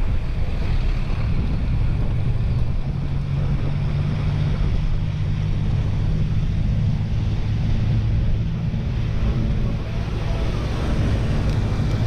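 Wind buffeting a helmet or body camera's microphone on a fast bicycle descent: a loud, steady rumble with a low drone underneath from about two seconds in.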